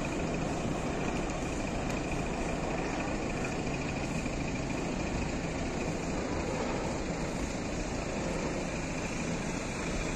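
Steady road-vehicle engine noise, a continuous low hum with a faint steady high tone, typical of trucks idling and running by the roadside.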